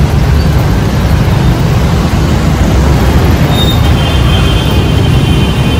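Road traffic running close by: a steady, loud low rumble of engines and tyres, with a faint high squeal in the last couple of seconds.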